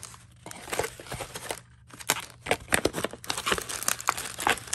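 Plastic bag crinkling as it is handled and pulled from a cardboard box insert, in quick irregular crackles with a short lull a little before the middle.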